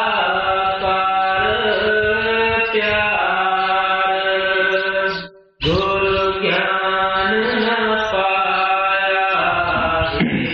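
Devotional chanting of a hymn verse: a voice singing long, held notes that glide gently between pitches. The sound cuts out abruptly for a moment about five seconds in, then resumes.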